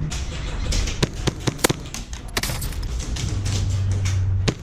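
Airsoft guns firing during play: irregular sharp shots, some single and some in quick strings, with a steady low hum joining about three seconds in.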